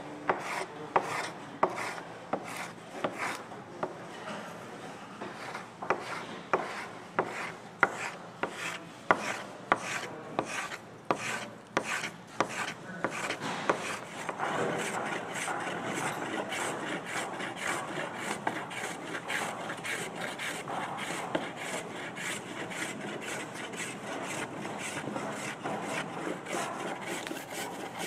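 Travisher, a curved-sole spokeshave, cutting shavings from a hollowed wooden chair seat, each push a sharp scraping slice. Separate strokes about a second apart at first, then quicker, closer-set strokes that run almost together from about halfway.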